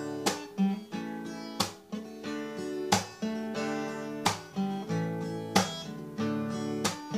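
Acoustic guitar strumming chords in a steady rhythm, with a hard accented strum about every second and a third.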